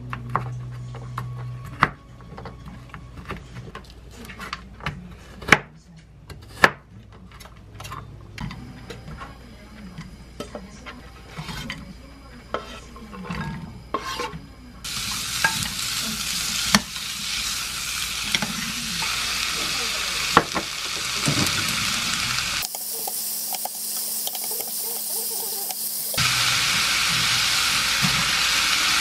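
A knife cutting bacon on a wooden cutting board, a scattering of sharp knocks. About halfway through, the bacon, sliced garlic and onion go into a frying pan and sizzle with a steady hiss that grows louder as the pan heats.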